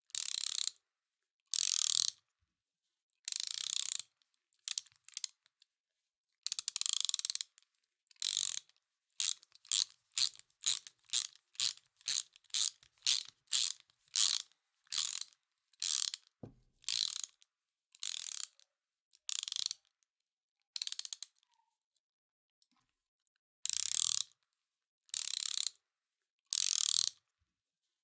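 Hand ratchet wrench being worked back and forth, each stroke giving a short burst of rapid pawl clicks with gaps between. The strokes come faster, about two a second, for a stretch in the middle, then stop for about two seconds before resuming.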